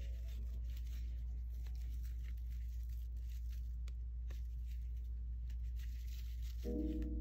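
Soft rustling and faint clicks of a crochet hook working thick yarn, over a steady low hum.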